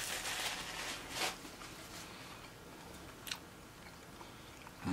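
A person chewing food close to the microphone, wet mouth sounds loudest in the first second or so, then quieter with a few faint clicks.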